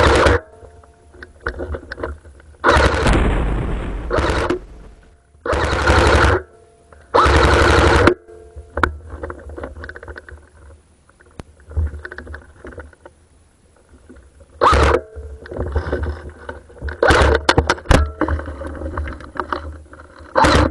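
Airsoft guns firing on full auto in repeated bursts, some short, one about two seconds long, with quieter scattered shots and clicks between them.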